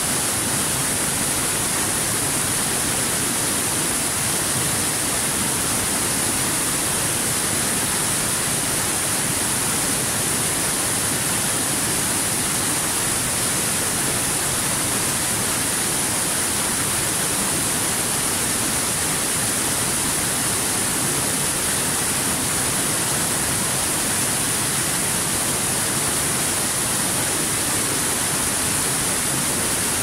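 Steady rush of water from a small waterfall cascading over boulders into a pool.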